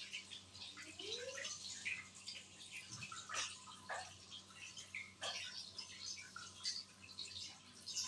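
Faint water splashing and dripping as hands are washed, with small irregular splashes.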